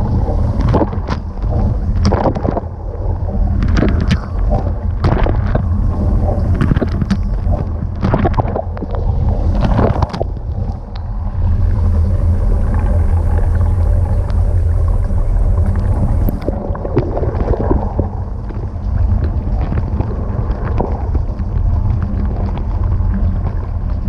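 Dishwasher wash cycle heard from inside the tub: a steady low pump hum under water spraying onto the dishes and splashing against the camera housing. The spray comes in uneven splashy surges for the first ten seconds or so, then turns steadier.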